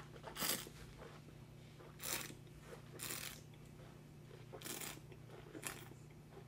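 A wine taster slurping, drawing air through a mouthful of white wine to aerate it: about five short, airy slurps a second or so apart, over a faint steady hum.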